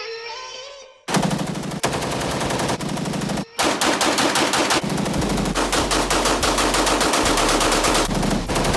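Rapid, continuous gunfire like automatic fire, starting about a second in, with a brief break near the middle.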